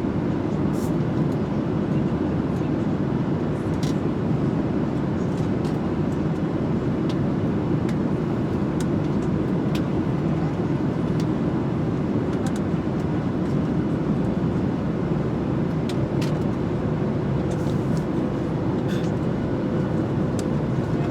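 Steady airliner cabin noise in flight: an even, unbroken rumble from the engines and airflow, with a few faint ticks.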